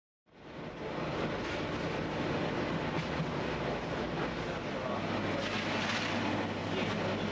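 Steady bakery machinery noise: a rushing sound over a low hum, fading in just after the start and running on evenly.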